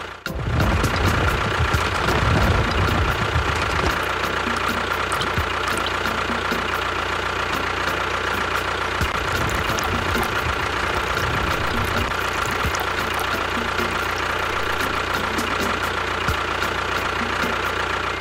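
Mini tractor running steadily: a continuous engine-like drone with a constant high whine over it, and irregular low knocks and thumps during the first few seconds.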